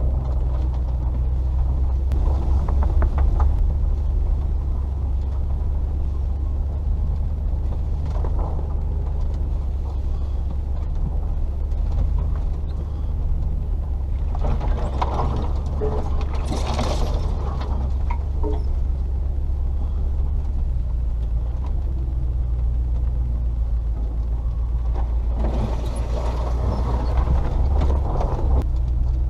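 Range Rover P38's 4.0-litre V8 running steadily at low revs while the vehicle drives slowly on a rough track, a low drone. About halfway through and again near the end come a few seconds of rustling and rattling noise over it.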